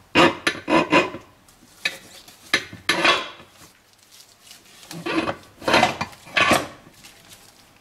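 Steel gear-set parts of a Mercedes 722.3 automatic transmission clinking and scraping as the planetary gear set with its K2 clutch drum is turned on its shaft and pushed into the housing. The clatter comes in three short rounds, with a quiet spell in the middle.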